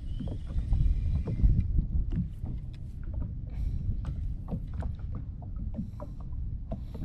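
Wind rumbling on the microphone and choppy water on the sea, with scattered small clicks and knocks from handling the spinning rod and reel.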